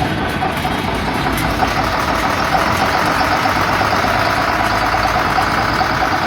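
Detroit Diesel 6V92 two-stroke V6 diesel engine running steadily, with a fast, even pulsing beat.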